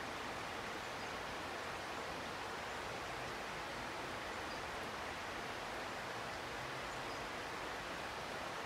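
Steady rushing of river water, an even hiss that does not change.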